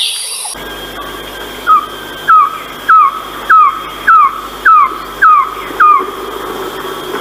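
Philippine trogon calling: a series of eight yelping notes, each rising briefly and then falling, evenly spaced a little over half a second apart, starting about a second and a half in.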